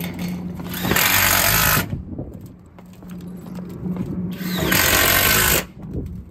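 Flex 24V compact impact driver driving lap screws into corrugated sheet-metal roofing: two bursts of rapid hammering, each about a second long, the second a little longer, with quieter handling between them.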